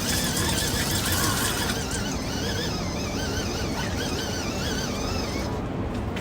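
Portable mini washing machine running, with a steady rushing noise and a high squeal whose pitch wavers up and down a few times a second.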